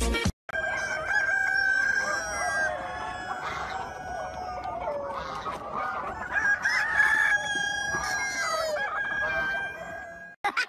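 A flock of chickens clucking, with a rooster crowing among them, many calls overlapping.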